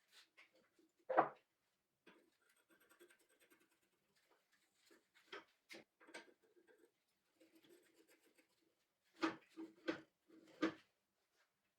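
Faint, scattered clicks and knocks with light scratching: one sharper knock about a second in and three close together near the end.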